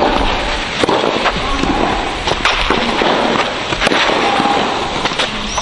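Tennis balls being struck by rackets and bouncing on clay: a string of sharp pops at irregular intervals over steady background noise.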